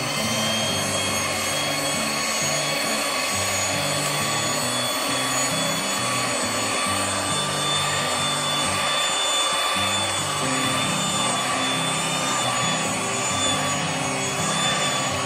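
Electric hand mixer running steadily with spiral dough hooks, a high motor whine as the hooks work flour and iced water into donut dough.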